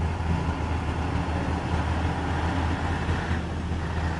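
Ural truck's diesel engine running steadily under load as the truck, towing a tanker semi-trailer, pushes through deep muddy water.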